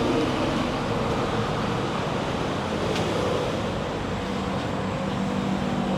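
Steady road traffic noise from passing vehicles, with a steady low hum joining about four seconds in.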